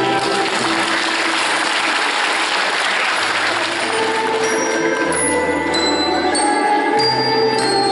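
Audience applauding over waltz music; the clapping is strongest at first and dies away about halfway through, leaving the waltz playing on.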